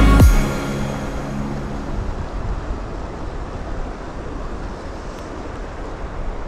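A music track ends with a falling sweep in the first half second, then the steady rush of flowing river water.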